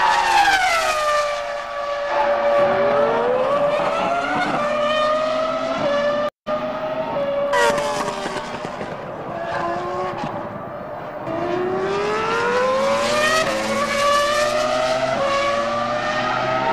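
Ferrari F2003-GA's V10 Formula One engine at high revs as the car runs past: the pitch falls sharply right at the start as it brakes and downshifts, then climbs through the gears in long rising sweeps about two and a half seconds in and again about eleven seconds in. The sound drops out for an instant a little past six seconds in.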